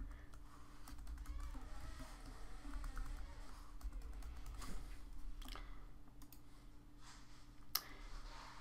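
Computer keyboard keys tapped in an irregular run as a password is typed in, with one sharper click near the end, over a steady low hum.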